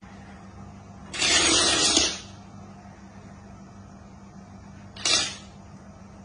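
A row of toy dominoes toppling in a chain on a hard floor: a rapid clatter about a second long, starting about a second in. A shorter clatter follows about five seconds in as the last dominoes fall.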